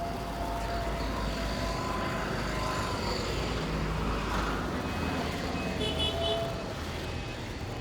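Street traffic: vehicle engines running, with a few held tones and a quick run of short high beeps about six seconds in.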